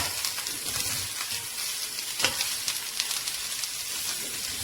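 Chopped beans, carrot and capsicum sizzling in hot oil in a pan while being stirred, with spatula scrapes and knocks against the pan near the start and about two seconds in.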